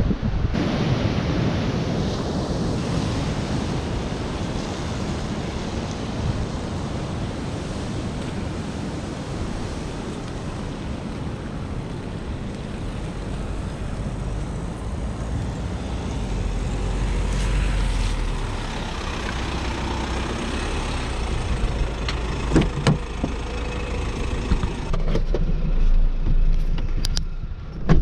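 Wind buffeting the microphone over distant surf. Near the end, the muffled running of the four-wheel drive's engine is heard from inside the cabin, with a few knocks.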